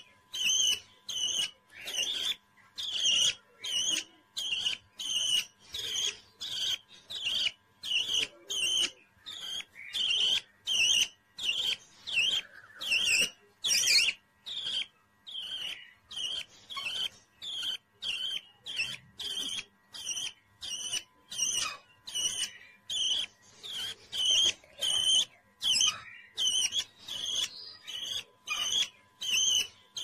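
Young budgerigar chick giving short, high chirps in a steady run, about two a second.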